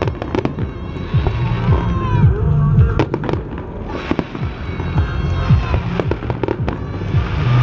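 Aerial fireworks shells bursting in quick succession, a string of sharp bangs and crackles, over a steady low hum.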